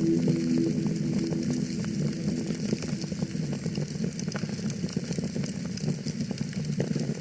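Wood fire crackling in a fireplace: a steady hiss and low rumble dotted with many small pops. A few held music notes fade out in the first second.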